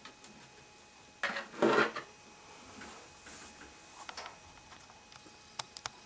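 Handling noise of a circuit board and tools: a short two-part clatter and rub about a second in, then a few light clicks near the end.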